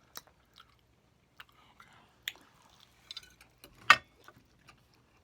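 Chewing and eating sounds close to the microphone: small crisp crackles and clicks, with one sharp louder click about four seconds in.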